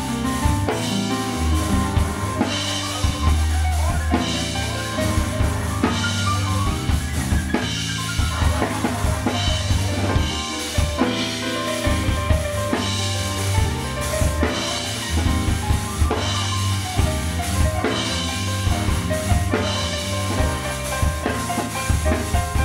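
Live band playing an instrumental groove: a drum kit (bass drum, snare and cymbals) over an electric bass guitar holding deep notes, with a high tone held steadily on top.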